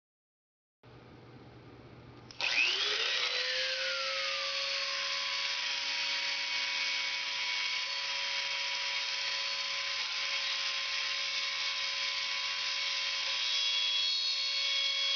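Dremel rotary tool in a drill-press stand switching on about two seconds in and then running with a steady high whine while its diamond grinding bit cuts a hole in wet glass. The tool is noisy and, according to its owner, in need of service.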